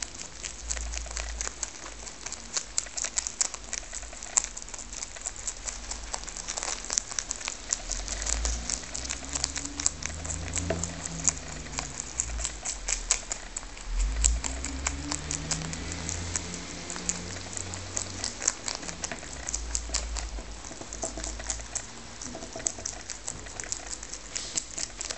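Lop-eared rabbits chewing and tearing crisp savoy cabbage leaves: a fast, uneven run of small crunching clicks.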